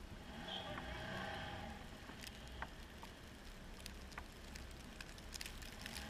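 Snowmobile engine running faintly and muffled, its pitch wavering a little, with scattered small clicks and ticks.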